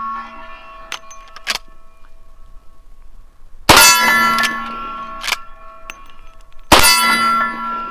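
Two .357 lever-action rifle shots, about three seconds apart, each followed at once by the long metallic ringing of a struck steel plate target. Lighter metallic clicks come between the shots as the lever is cycled.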